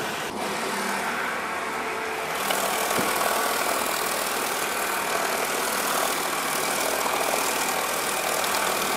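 Meat bowl cutter running with a steady mechanical whir as it chops and mixes chicken sausage meat into a paste.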